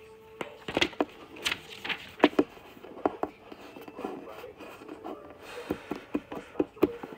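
Irregular handling noises: a string of light taps, clicks and rustles as things are picked up and moved about on a surface.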